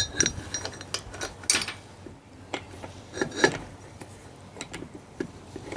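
Irregular metal clinks and knocks as a workpiece is set and clamped in a bench chain vise, with a few louder clanks near the start, about a second and a half in, and about three and a half seconds in.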